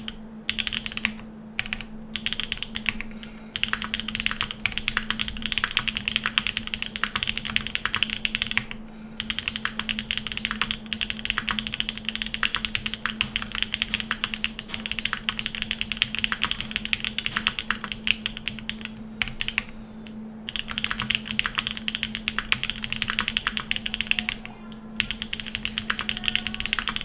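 Gok 7V custom mechanical keyboard with lubed Jade Black switches on a polycarbonate plate, typed on quickly and continuously in runs of rapid key clicks, with brief pauses about a second in, near 9 s, around 19–20 s and near 25 s. A steady low hum sits underneath.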